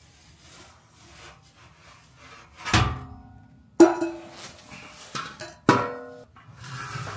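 Factory exhaust muffler and tailpipe on a Ford Bronco knocking three times as they are lowered from under the vehicle, each metal knock ringing briefly.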